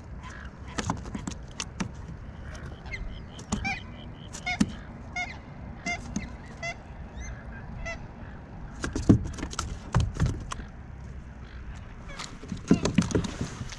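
Waterfowl honking, a series of short calls repeated every half second or so in the first half. A few loud low thumps come in the second half, the loudest about nine and thirteen seconds in.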